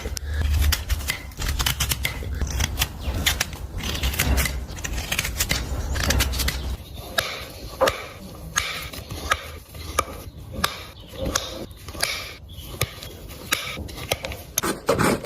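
Farrier's tools working a horse's hoof: a run of sharp, irregular snips and scrapes as the hoof is cut and pared. A low hum lies under the first half and stops about seven seconds in.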